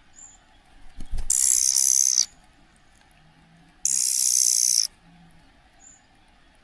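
A bird gives two harsh, hissing calls, each about a second long: one about a second in, the next a little under two seconds after the first ends.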